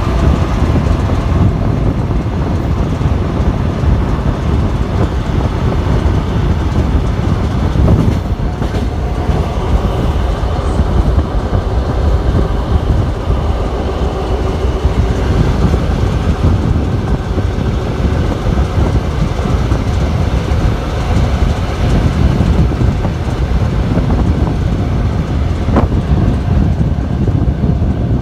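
ET2 electric multiple unit running along the track: a steady, loud rumble of wheels on the rails, with a few sharper knocks.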